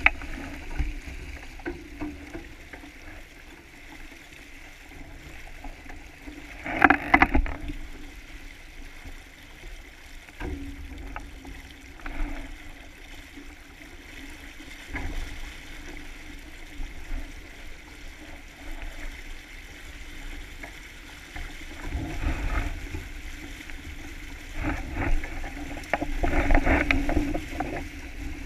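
Small sailboat under way: water rushing and splashing along the hull, with scattered clicks from the rigging and deck gear. It surges louder about seven seconds in and again over the last several seconds.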